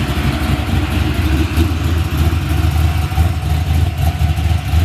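Box Chevy Caprice's V8 idling loud with a choppy, uneven low rumble from its exhaust.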